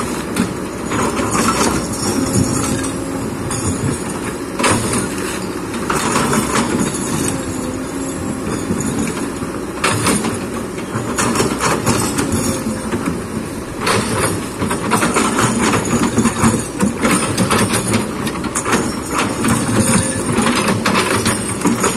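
Kobelco hydraulic excavator working: the diesel engine running under load, with repeated knocks and scrapes of the bucket against earth and rock.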